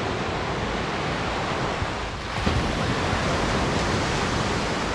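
Ocean surf breaking on a beach: a steady rushing wash of waves that dips briefly about two seconds in, then swells again.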